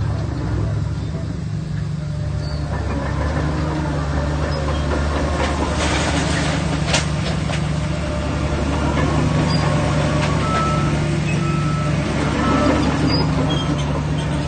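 Diesel engine of a Shantui DH17C3 Pro bulldozer running steadily under load while pushing stone fill, with a few sharp knocks about halfway through. Short high beeps repeat about once a second in the second half, like a reversing alarm.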